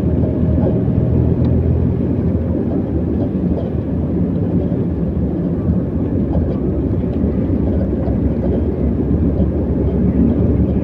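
Steady low rumble of a vehicle travelling along a highway: engine, tyre and wind noise with no sharp events.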